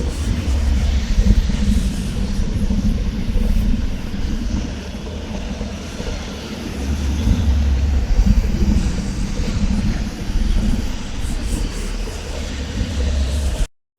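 A continuous deep rumble with a dense, noisy texture that swells and eases, from a hellish ambience sound effect. It cuts off suddenly near the end.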